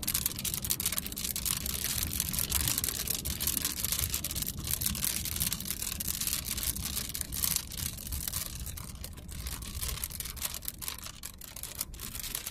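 Rain striking the windshield and roof of a moving vehicle as dense, irregular ticks, over a low road rumble, heard inside the cabin.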